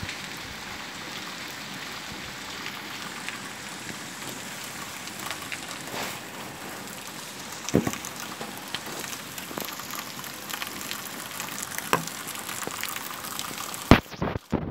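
Heavy rain falling on a flooded paved street: a steady hiss with occasional louder drop clicks. Near the end, a few loud sharp knocks.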